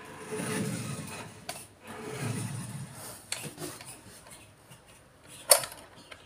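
Small electric motor and gearbox of an RC truck fitted with a WPL D12 drive, whirring in two bursts of about a second as the truck drives, then stopping. A few clicks follow, the loudest a sharp click about five and a half seconds in.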